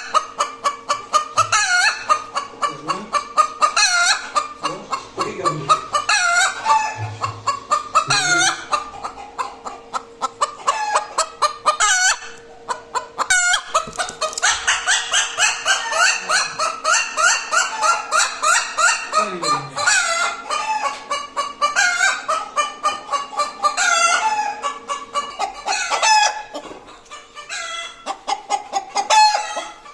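Hen's egg-laying cackle: runs of rapid clucks broken every few seconds by longer, drawn-out squawks, the call a hen makes after laying an egg.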